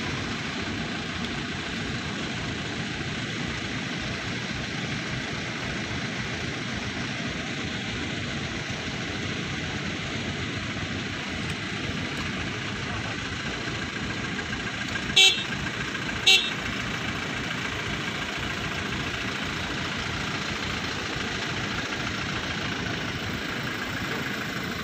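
Steady rumbling outdoor noise with a faint even whine in it, broken about 15 seconds in by two short, loud, sharp beeps a second apart.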